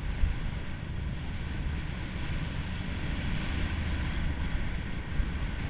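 Wind buffeting the microphone of a camera carried down a ski slope, a steady low rumble, with the hiss of sliding over packed snow.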